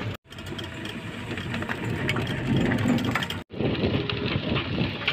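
Ride in an open passenger vehicle: its engine running with a jumble of small rattles and knocks from the body. The sound cuts out sharply twice, near the start and about three and a half seconds in.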